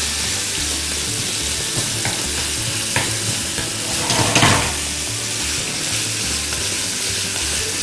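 Minced meat sizzling steadily in hot oil in a frying pan as it is stirred with a wooden spoon, with a few light knocks of the spoon against the pan. The meat is being seared quickly, just until it changes colour.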